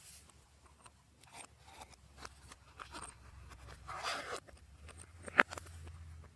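Slime being squished and stretched by hand: scattered small clicks and crackles, a longer crackling stretch about four seconds in, and a sharp pop about five and a half seconds in.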